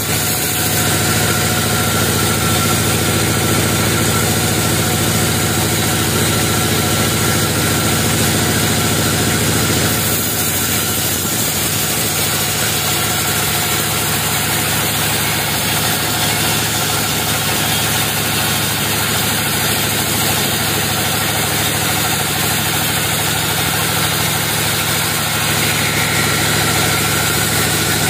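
Band sawmill running steadily as its blade rips lengthwise through a thick-barked log: a constant machine drone with a hiss from the cut.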